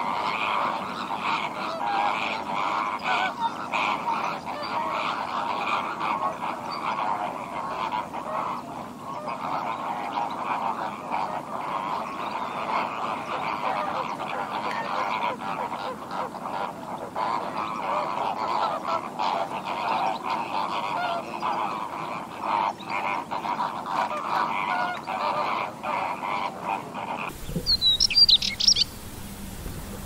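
A flock of flamingos calling, a dense chatter of many overlapping goose-like honks. About 27 seconds in the sound changes abruptly to a few high, gliding chirps of a small songbird.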